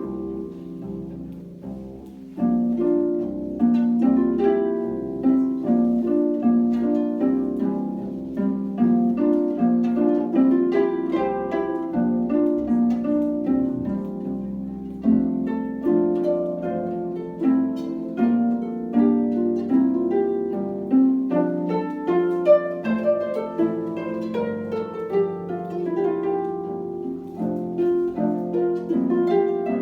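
Two concert harps playing a duet: a steady flow of plucked, ringing notes in the low and middle range. The playing softens briefly near the start and comes in louder again about two seconds in.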